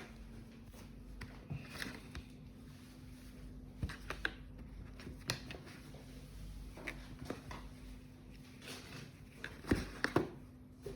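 Hands handling a sneaker box and its packaging: scattered light taps, clicks and rustles, loudest near the end, over a faint steady hum.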